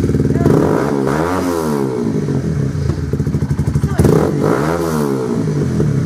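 Loud 2014 Honda CBR125R single-cylinder four-stroke engine running through a Scorpion aftermarket exhaust with the baffle (dB killer) removed. It idles and is revved twice, about a second in and again about four seconds in, each rev rising and falling back to idle.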